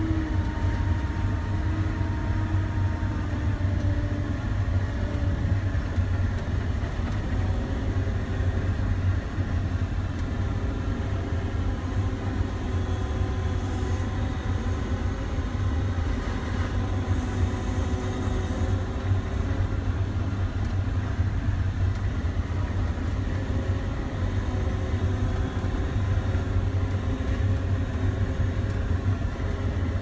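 John Deere 9500 combine's diesel engine heard from inside the cab: a steady low drone as the machine drives along a field lane, with faint steady whining tones above it.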